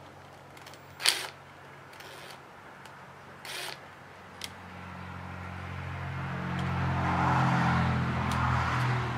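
A cordless drill-driver spins in short bursts on the outlet's screws, the first and loudest about a second in. Over the last few seconds a steady low hum swells up and grows much louder.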